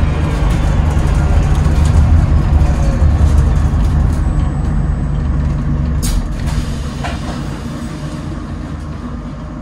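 Alexander Dennis Enviro400H MMC hybrid double-decker bus running, heard from inside on the upper deck: a low drive rumble with a whine from its BAE hybrid electric drive falling in pitch, getting quieter as the bus slows. A short sharp hiss about six seconds in.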